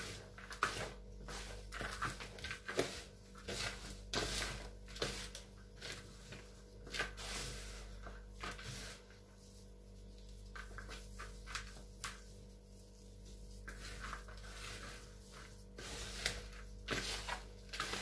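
Gloved hands mixing potting soil and sand in a plastic basin: irregular rustling and scraping of the damp mix, quieter for a few seconds in the middle.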